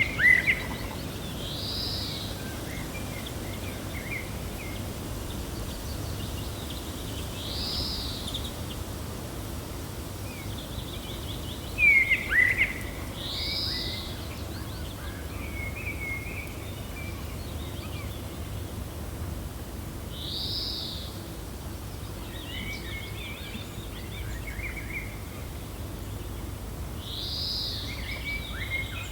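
Gentle steady wind with small birds calling: a high, arched call repeats about every six or seven seconds, with softer twittering between and two loud, sharp chirps, one at the start and one about twelve seconds in.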